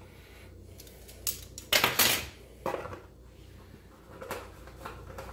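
A few sharp clinks and knocks of a spice jar and plastic measuring spoons as a tablespoon of dried parsley is added to a stainless steel mixing bowl, the loudest about two seconds in.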